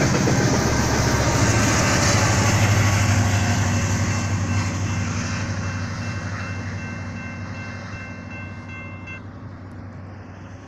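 Diesel locomotive at the tail of a BNSF coal train passing close by, its engine and wheels rumbling on the rails, then fading steadily as the train moves away. A steady high ringing tone sounds over it and stops suddenly about nine seconds in.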